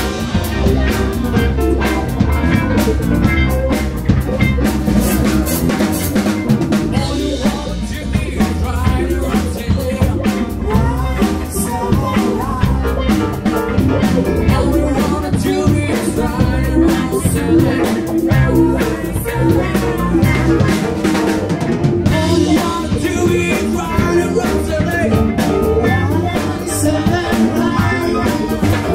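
Live band playing a song: a drum kit keeping a steady beat under bass and electric guitar.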